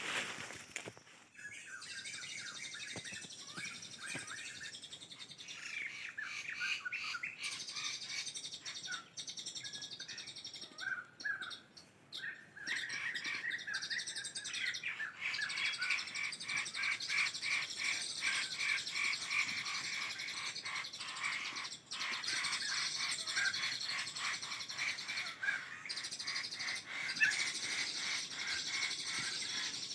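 Birds chirping and calling without a break. About halfway through, a fast run of repeated notes sets in and carries on.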